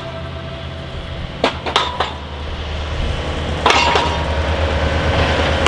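An engine idling with a steady low hum, with sharp metallic knocks and clinks over it: a cluster about a second and a half in and another near four seconds, ringing briefly.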